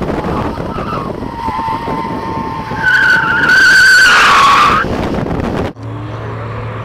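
BMW M3 E46's tyres squealing as it corners hard, over wind and road rush on a camera mounted on the car's side. The squeal grows much louder and higher about three seconds in, then cuts off suddenly near six seconds, giving way to a steady engine drone with a slowly rising note.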